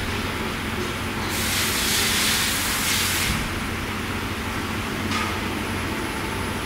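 Metalworking machine tool running with a steady low hum, with a loud hiss starting about a second in and lasting some two seconds, and a shorter hiss near the end.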